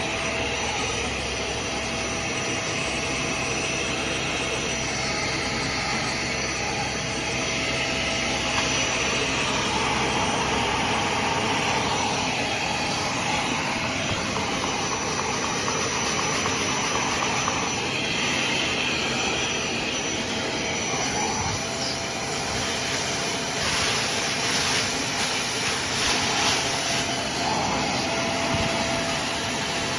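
Hoover CleanSlate portable carpet and upholstery spot cleaner running: a steady suction-motor whir with a constant whine. The whir turns rougher for a few seconds near the end.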